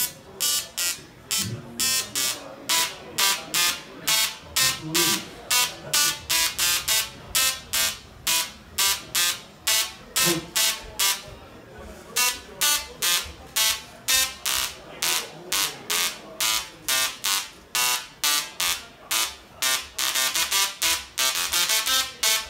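A DRSSTC (dual-resonant solid-state Tesla coil) plays keyboard notes through its spark discharge, a rapid series of short, buzzy pitched notes at about three a second. Near the end the notes come closer together.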